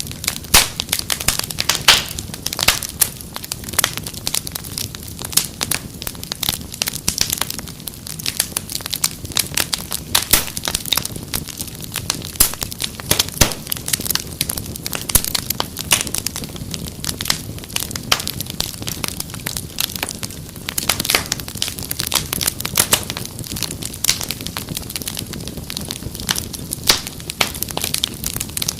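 Wood fire crackling steadily, with dense irregular pops and snaps over a low rush of flames.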